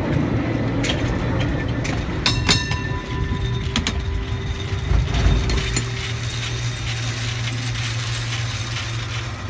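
San Francisco cable car running on its rails, a steady rumble with a quick cluster of sharp metallic clanks and ringing about two seconds in. A steady low hum sets in from about six seconds.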